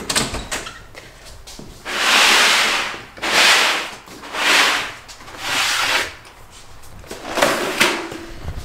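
Rubbing and brushing noise against the camera's microphone as it is carried close to the body: four long hissy swells about a second apart, then fainter rustles and a few light knocks near the end.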